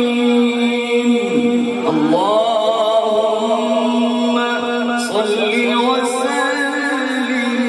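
A male qari's voice chanting Qur'anic recitation into a microphone, in long held notes broken by quick ornamented runs, about two seconds in and again near five seconds.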